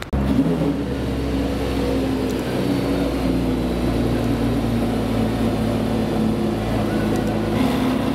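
Porsche Carrera GT's V10 engine idling steadily, its pitch holding nearly constant.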